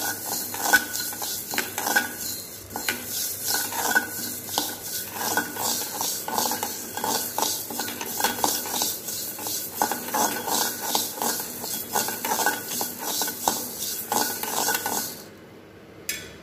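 A metal spatula scrapes around a black kadai, stirring coriander seeds as they dry-roast without oil. It is a steady run of scraping strokes, about two a second, that stops near the end.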